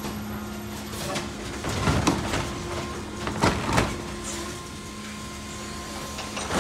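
Electric Mack LR New Way Sidewinder side-loader garbage truck working at the kerb: a steady electric hum with two bursts of mechanical clatter and knocks, about two and three-and-a-half seconds in.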